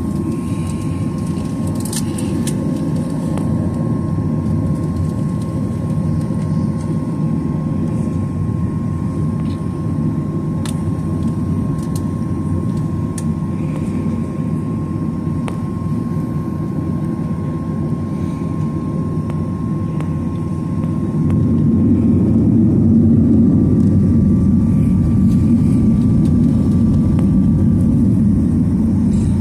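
Steady jet engine noise heard inside the cabin of a Boeing 737-900ER, its CFM56-7B turbofans running as a broad rumble with a thin steady tone above it. The rumble grows louder about 21 seconds in and holds there.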